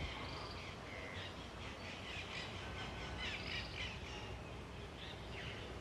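Faint, scattered bird calls: short chirps and squawks over a low, steady background hum.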